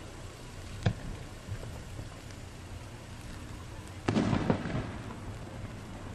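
Aerial firework shells bursting: one sharp bang about a second in, then a louder cluster of rapid crackling reports around four seconds in.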